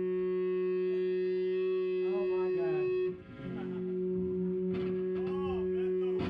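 Amplified electric guitar sounding a steady droning tone through effects, breaking off briefly about three seconds in and then coming back, with faint voices over it.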